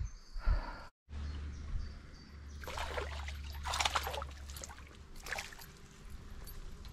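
Small splashes of river water as a perch is let go from the hand back into the river, the loudest about four seconds in, with a couple of lighter splashes around it.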